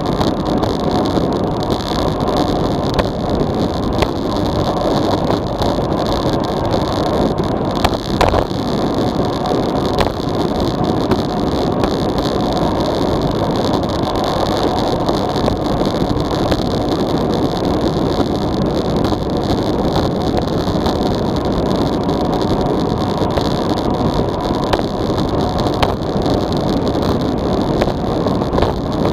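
Wind rushing loudly and steadily over a small action camera's microphone on a road bicycle descending at about 45–57 km/h. A few brief knocks cut through it, the clearest about eight seconds in.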